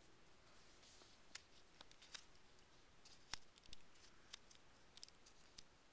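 Faint, scattered small clicks from handling a removed Best lock core, with one sharper click about three seconds in.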